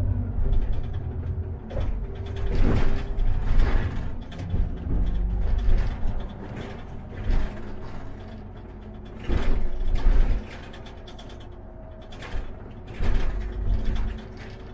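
Diesel city bus running, a heavy low rumble at first that eases off after a few seconds. Over it come several short spells of hissing and knocking, a few seconds apart.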